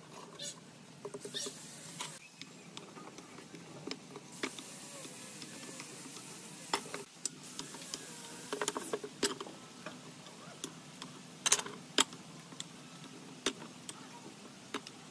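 Hand work on wood: irregular light taps and knocks, with sharper ones about seven, nine, eleven and twelve seconds in, and short scraping and rustling between them over a steady hiss.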